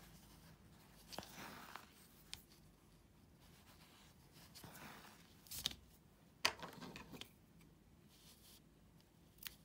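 Faint rustling of fabric and wool yarn as a needle is worked through stitches in an embroidery hoop, broken by a few short sharp clicks and snips, among them small scissors cutting the yarn.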